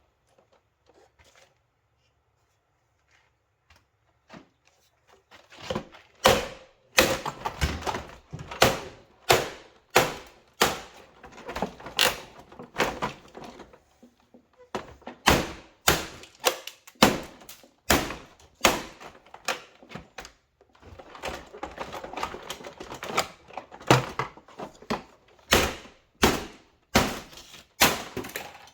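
Repeated sharp knocks and clatter of hand tools working at a vacuum cleaner's plastic housing during disassembly. They start about five seconds in at roughly one to two a second, with a brief pause midway.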